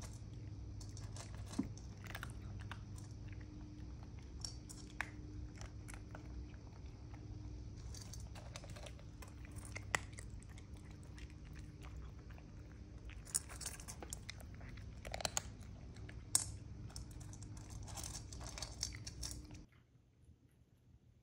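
Cats crunching and chewing dry kibble: irregular crisp crunches over a steady low hum, stopping shortly before the end.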